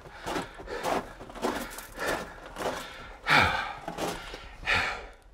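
Footsteps crunching and scuffing over loose rock rubble in a narrow mine tunnel, irregular, with a man's breathing that is loudest twice, about three and a half and nearly five seconds in.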